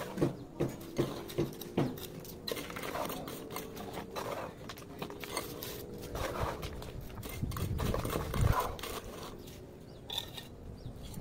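Bricklaying work: a trowel tapping bricks down into the mortar bed, first as a quick even series of sharp knocks about two a second, then scattered knocks, with a louder dull thudding a little after halfway.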